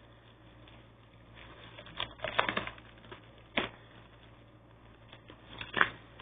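Plastic packaging being handled and pulled at to free an action figure: a cluster of crinkles and crackles about two seconds in, then single sharp clicks near the middle and near the end.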